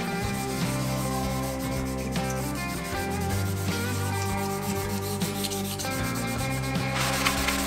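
A green abrasive pad rubbing a finish back and forth into the wood of an ebony box, over soft background music. Near the end the rubbing gives way to a brighter, scratchier wiping.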